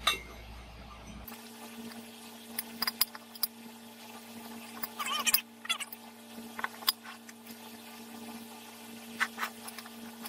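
Adjustable wrench cinching up the bolts that hold a WEN 4208 drill press column to its cast iron base: scattered metal clicks and clinks, with a short squeak about five seconds in. A steady low hum runs underneath from about a second in.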